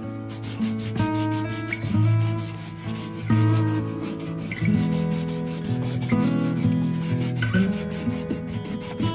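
Sandpaper rubbed by hand in quick back-and-forth strokes over a hardened sand-and-super-glue patch on a plastic bin, a steady dry rasping scrub. Background guitar music plays throughout.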